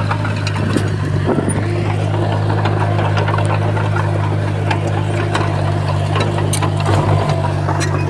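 Diesel engine of heavy earthmoving equipment running steadily at a constant low pitch, with scattered clicks and knocks over it.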